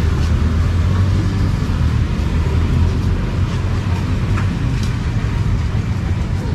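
A steady low engine rumble with a general street-noise hiss. The rumble is strongest in the first half and eases off after about three seconds.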